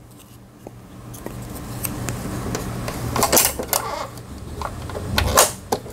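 Light clicks and rattles of a bobbin and a clear plastic bobbin cover being fitted and pressed into the drop-in bobbin area of a Singer 3827 sewing machine, with a few sharper snaps about three and a half seconds in and again near the end, over a low steady hum.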